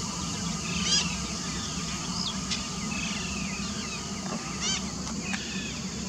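Birds calling in open grassland, a busy mix of short chirps and whistles. Two louder sharp calls stand out, about a second in and near five seconds, over a steady low hum.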